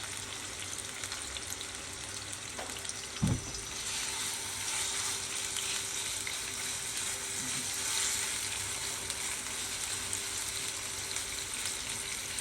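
Marinated chicken pieces sizzling in hot soybean oil in a pan over high heat. There is a single knock about three seconds in, and the sizzle grows a little louder from about four seconds in.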